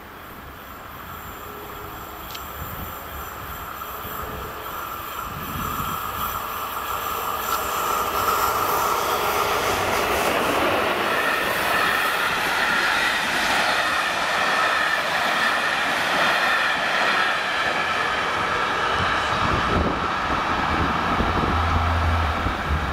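A passenger train of Czech Railways coaches passing over a level crossing. It grows steadily louder as it approaches over the first several seconds, then holds as a loud, steady run of wheels on rails while the coaches go by, easing off near the end.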